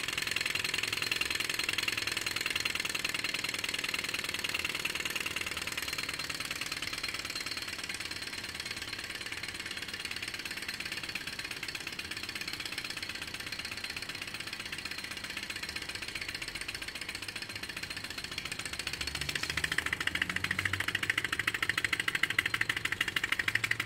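Two-cylinder thermal-lag Stirling engine running on residual heat after its burners are put out: a fast, even mechanical clatter from its pistons, cranks and flywheel. It fades slowly over most of the stretch, then gets louder again near the end.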